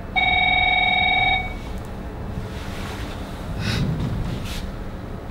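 Telephone ringing: one electronic warbling ring lasting about a second and a quarter, starting just after the beginning.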